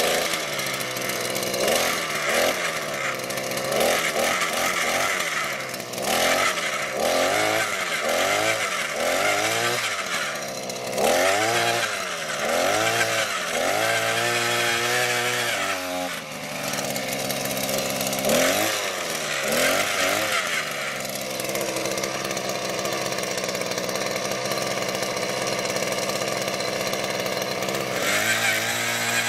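Small gas engine of a handheld power tool revving up and down over and over in quick surges about once a second. It then runs more evenly for a stretch before surging again near the end.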